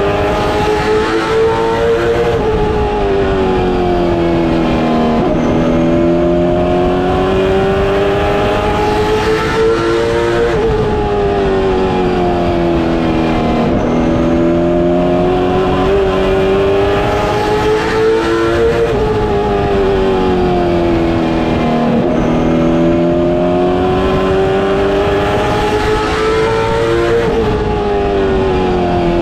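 Late model stock car's V8 engine heard from inside the cockpit at racing speed. Its pitch climbs steadily down each straight, then drops sharply as the driver lifts for the turns and picks up again, about every eight seconds.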